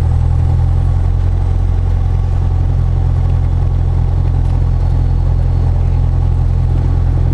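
Single-engine piston propeller plane's engine and propeller running steadily at low power, heard from inside the cockpit as an even, low drone.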